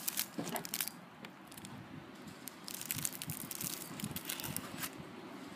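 Rustling and crinkling of takeout packaging being handled: a paper bag and cardboard pizza box being opened, with scattered crackles and clicks, busiest in the first second and again a few seconds in.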